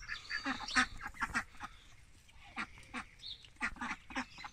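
Runner ducks quacking in short, scattered calls, with a brief lull about two seconds in.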